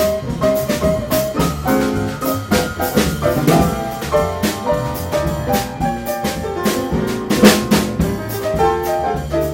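Jazz piano trio music with piano, bass and drum kit. The drums are busy here, with a loud accented hit about seven and a half seconds in.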